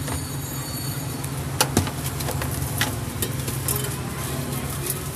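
Steady low hum of an idling engine, with a few sharp clicks and knocks from a can and paper being handled on a steel counter, the loudest a little under two seconds in.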